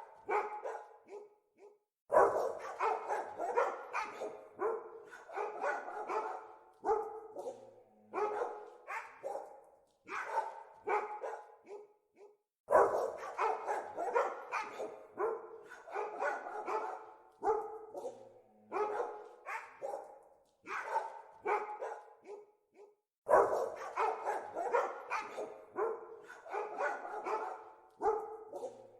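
Dogs barking in quick runs of sharp barks with short pauses between them. A loud new bout starts about every ten seconds.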